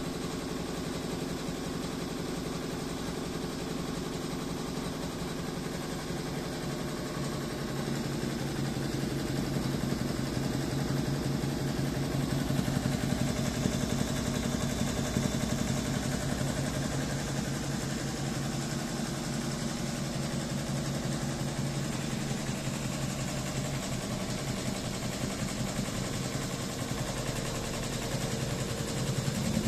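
Wonyo WY1201CM single-head 12-needle embroidery machine running, its needle bar stitching with a fast, even mechanical clatter. It grows a little louder after several seconds.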